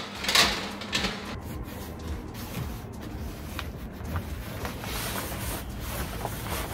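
A sharp clatter as a metal baking tray slides into an oven, then the rustling and rubbing of a fabric Weber grill cover being handled, over a steady background noise.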